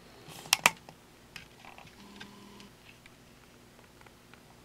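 Two sharp clicks about half a second in, followed by a few light taps: a camera tripod being moved and set back down.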